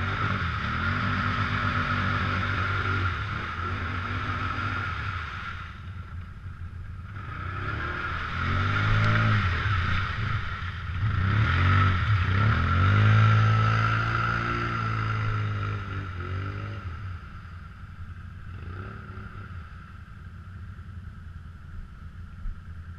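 Can-Am Outlander ATV engine revving up and down again and again as the quad churns through deep mud, over a steady engine drone. The revving is loudest in the middle and fades near the end as the ATV pulls away.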